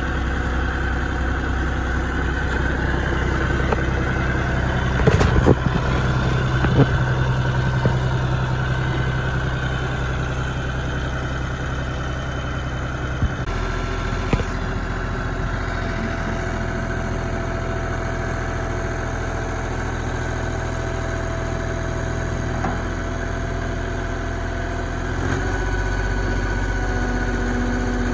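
John Deere 5205 compact utility tractor's diesel engine running steadily, with a few knocks about five to seven seconds in. Near the end its note steps up as the front-end loader lifts its bucket.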